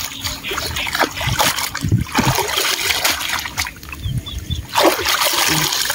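Water splashing and trickling as a green mesh fish net holding freshly caught fish is dunked and swished back and forth in shallow ditch water, in irregular bursts.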